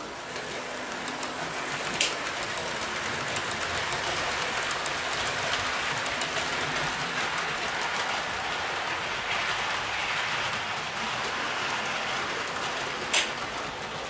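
Model trains running on the layout's track: a steady hiss of wheels and motors with light ticking over the rails. Electric point motors snap sharply twice, about two seconds in and near the end, as the program switches the points.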